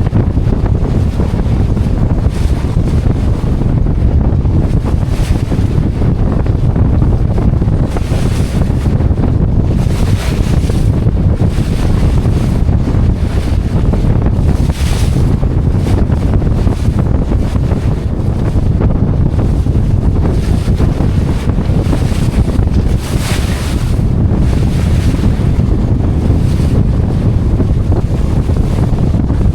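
Heavy wind buffeting the microphone over the wash of waves around a small yacht crossing a surf bar. A few louder rushes of water and wind come through, the strongest about 23 seconds in.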